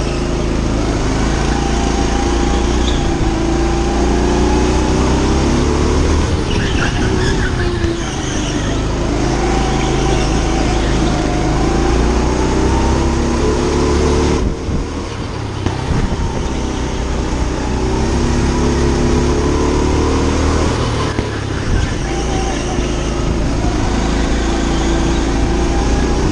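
Go-kart motor heard from onboard, its pitch rising and falling over and over as the kart speeds up and slows down around the track. The sound drops away sharply about 14 seconds in and picks up again a second or two later, with another brief dip about 21 seconds in.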